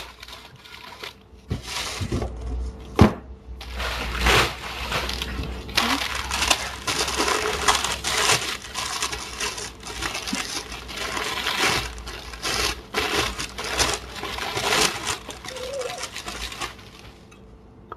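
Packaging being handled during an unboxing: irregular rustling and crinkling with small knocks, and a sharp click about three seconds in.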